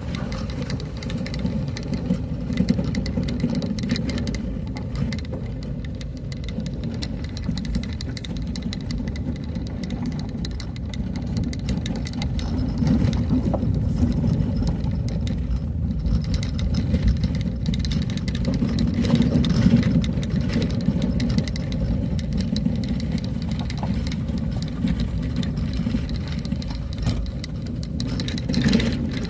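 A motor vehicle driving along a road: a steady low engine-and-road rumble with scattered clicks and knocks.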